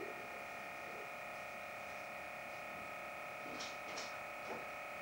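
Faint steady electrical whine made of several even, high tones held unchanged, with three soft clicks a little past halfway.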